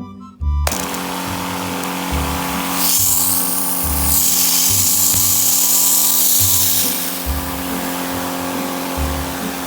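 A motor-driven machine switches on about half a second in and runs steadily with a loud hiss that grows stronger for a few seconds in the middle, over background music with a steady beat.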